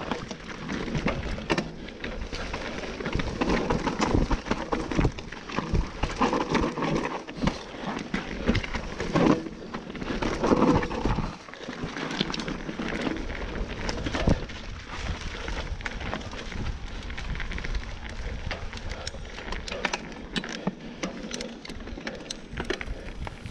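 Mountain bike riding over a rocky gravel trail: tyres crunching on loose stones with frequent rattles and knocks from the bike, over a low rumble of wind on the camera microphone.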